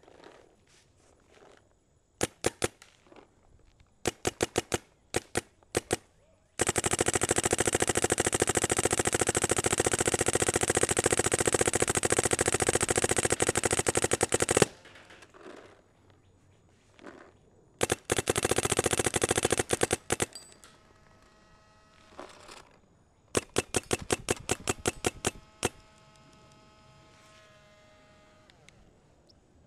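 Smart Parts Shocker NXT electronic paintball marker firing. First come a few short strings of shots, then one long rapid string of about eight seconds, then two shorter rapid strings. A fainter steady whine follows the last strings.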